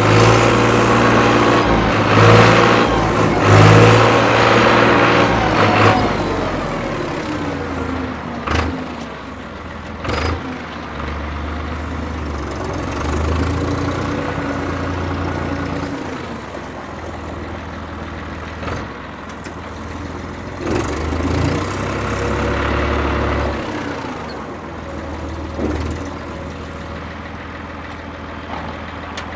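1992 Case IH 495 utility tractor's diesel engine running as the tractor is driven, loud and revved in the first few seconds, then settling lower with its pitch rising and falling with the throttle. A couple of sharp knocks come about eight and ten seconds in.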